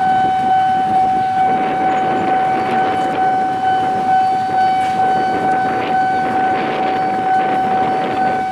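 Railway level-crossing warning alarm sounding one steady high electronic tone without a break, over a rumble that swells in the middle.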